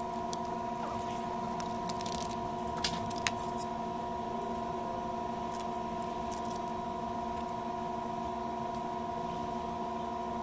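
A few small, sharp clicks and snips of thin wires being cut and handled, the two loudest about three seconds in, over a steady electrical hum of several tones.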